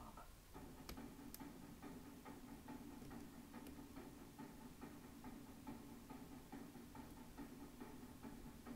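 Faint, irregular clicking of a lock pick and tension wrench working the pins of a Russwin five-pin lock cylinder, with two sharper clicks about a second in. A low steady hum runs underneath.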